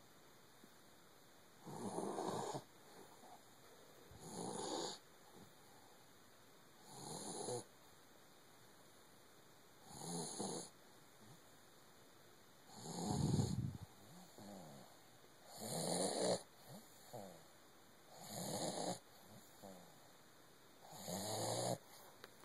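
Doberman puppy snoring: eight snores, about one every three seconds, each lasting about a second.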